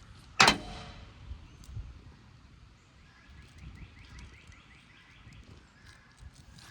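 A single sudden loud hit about half a second in, fading out over about half a second. Near the middle comes a faint rapid trill.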